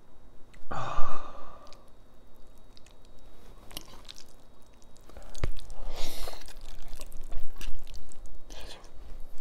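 A man eating spicy instant ramen with a fork from a glass bowl. About a second in comes a loud, sigh-like breath out. From about five seconds on there are sharp clinks of the fork on the glass and noisy slurping and chewing of noodles.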